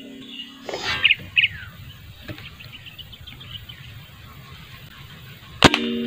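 Faint bird chirps, then near the end one sharp air rifle shot fired at a spotted dove, followed by a low hum that lingers after the crack.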